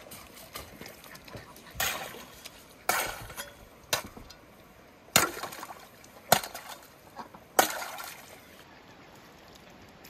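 An axe chopping into the ice sheet at the water's edge: six sharp blows about a second apart, each with a splash of water, the last two loudest.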